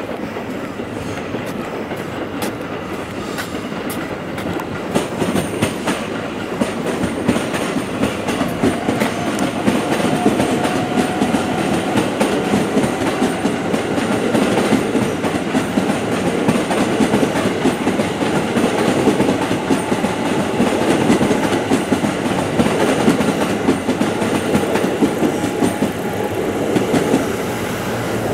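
JR West 281 series limited-express electric multiple unit, nine cars, pulling away from the station and running past, its wheels clacking over the rail joints. The noise builds gradually as the train goes by, with a faint rising whine about ten seconds in.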